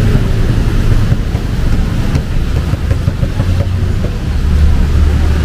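Street traffic: a nearby motor vehicle's engine running with a loud low hum that drops slightly in pitch near the end, over a steady wash of traffic noise.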